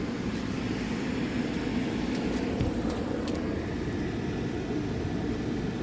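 Outdoor air conditioner condensing units running: a steady hum of condenser fans and compressors with a faint low drone.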